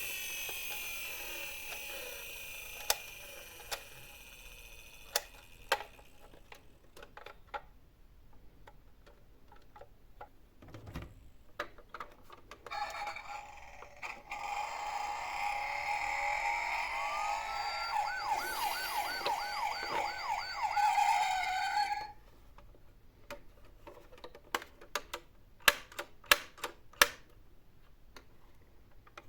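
Toy emergency vehicles' electronic sound effects playing through small speakers, mixed with sharp plastic clicks. An electronic tone fades out over the first six seconds; then, from about a third of the way in, a louder electronic sound rises into a fast warbling siren and cuts off suddenly, followed by a run of clicks.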